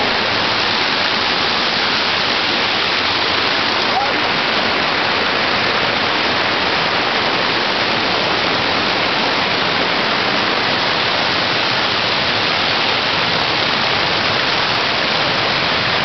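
Waterfall: a loud, steady rush of falling water, even and unbroken.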